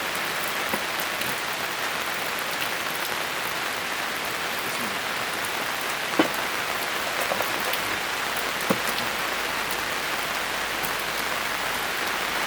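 Steady rain falling, with a few short sharp knocks or clinks, the loudest about six seconds in and another near nine seconds.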